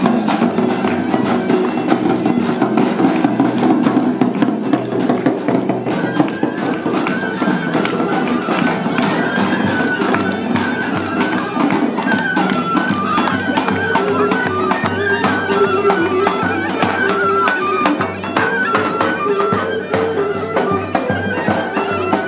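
Folk music played live on the march: a drum beating steadily under a wind-instrument melody held over a steady drone.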